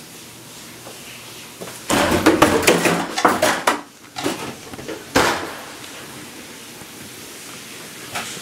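Clattering and knocking of objects being moved about in a small room, ending with one sharp knock about five seconds in.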